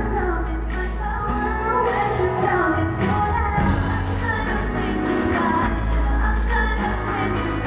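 A woman singing a pop song live, with instrumental backing and a steady bass line.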